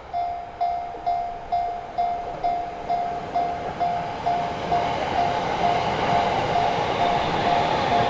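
A Japanese level-crossing warning bell starts ringing its repeated clang, about two strikes a second, signalling that a train is coming. In the second half, the rushing rumble of an approaching Yamanote Line train builds under the bell.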